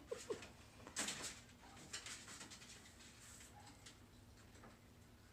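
Faint handling noises as a mirror is worked against the wall onto its hanging screws: a short scrape about a second in, then light taps and rustles.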